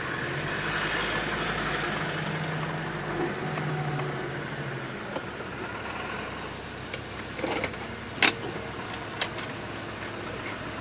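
Land Rover Discovery 2 Td5's five-cylinder turbodiesel running as it drives slowly, heard from inside the cabin, with a low hum in the first few seconds. A few sharp clicks and knocks come near the end.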